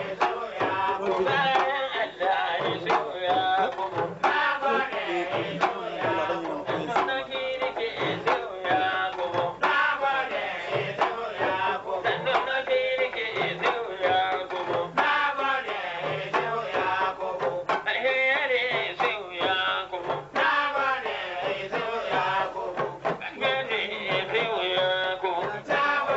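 A man singing, with hand drums beating a steady rhythm under the voice.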